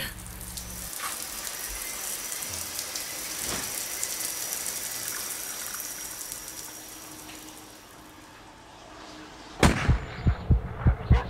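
A steady rushing hiss, like running water, fades away over about eight seconds. Near the end a sudden loud hit is followed by fast low throbbing thumps, about three a second.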